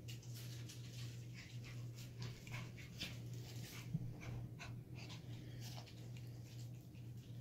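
Two miniature schnauzer puppies at play: quick irregular scuffling and breathing sounds over a steady low hum, with one sharp tap about four seconds in.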